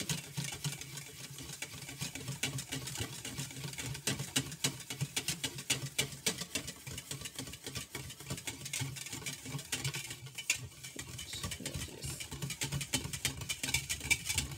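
Wire whisk beating liquid in a stainless steel bowl: a fast, steady run of light clicks and scraping as the wires rattle against the metal and swish through the liquid. It is stirring powdered gelatin into sweetened hojicha tea to dissolve it.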